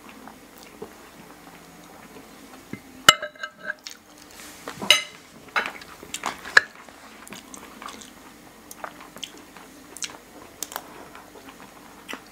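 Metal spoons and forks clinking and scraping on ceramic plates as two people eat, with scattered sharp clinks, a few of them ringing briefly, the loudest about three and five seconds in.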